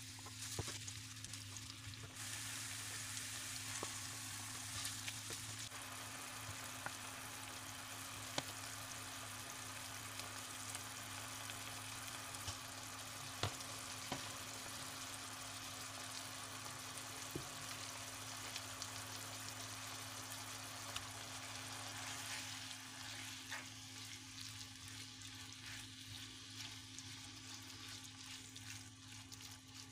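Chopped onion and red pepper, then nettles, sizzling in hot oil in a non-stick frying pan, stirred with a wooden spatula that gives a few sharp taps. The sizzle comes up about two seconds in and eases a little near the end, over a steady low hum.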